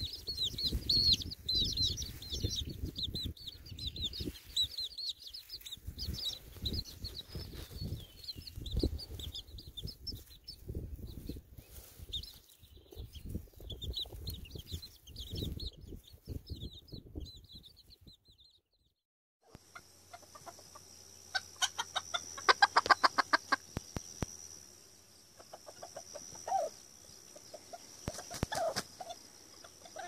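Young Serama chicks peeping rapidly in many short high chirps, with wind rumbling on the microphone. After a brief silent cut, a Serama rooster calls in a quick series of loud pulses over a steady high-pitched hum.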